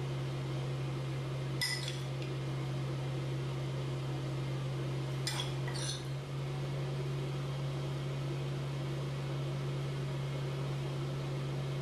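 A spoon clinking against dishes three times, once near the start and twice a few seconds later, each with a short ring. Under it runs a steady low hum.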